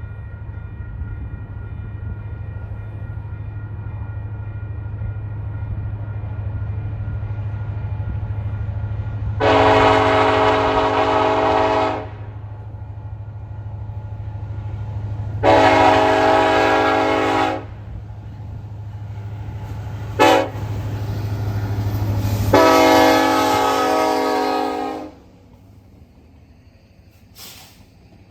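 Diesel locomotives of a BNSF coal train approaching with a steady low engine rumble that grows louder, the lead SD70ACe sounding its multi-chime air horn in the grade-crossing pattern: long, long, short, long. The level drops sharply right after the last blast ends.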